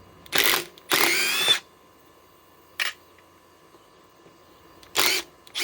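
Metabo HPT WH18DDX 18 V cordless impact driver run in short trigger bursts, four or five in all, the longest lasting over half a second about a second in, with the motor's pitch rising as it spins up. It is working to back out an old screw driven into a tree stump.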